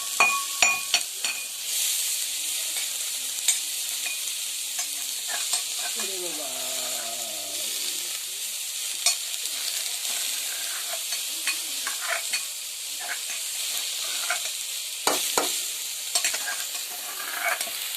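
Wood fire crackling and hissing, with scattered sharp pops and a cluster of louder pops about fifteen seconds in.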